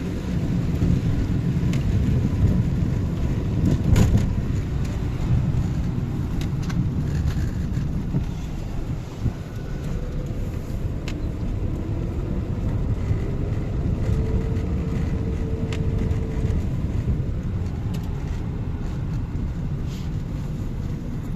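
Steady low rumble of city street traffic, with scattered faint clicks. A faint tone rises and then holds for a few seconds just past the middle.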